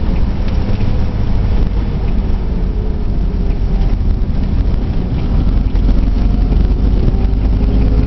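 A 1950s Morris Oxford's four-cylinder engine running steadily under way, heard from inside the cabin with road and wind noise.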